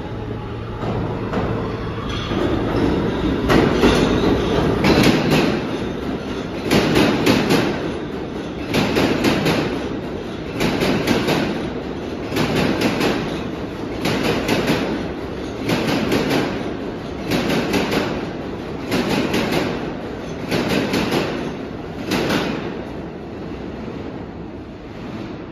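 New York City subway train running past on the far track, its wheels clattering over the rail joints in a steady rhythm, one loud burst about every two seconds as the cars go by. The clatter stops a few seconds before the end and the sound fades away.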